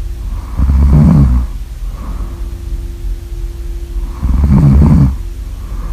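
A person snoring really loud: two long snores about three and a half seconds apart, with quieter breathing between them.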